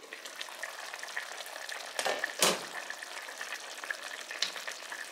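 Pot of chicken stew simmering, its bubbling and crackle heard clearly once the glass lid comes off. Two sharp knocks about two seconds in.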